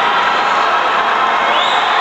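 Basketball arena crowd cheering and shouting steadily, many voices blended into one continuous wall of noise.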